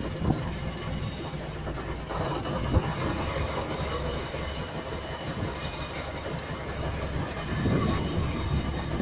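A boat's engine running, a steady low rumble with irregular knocks through it.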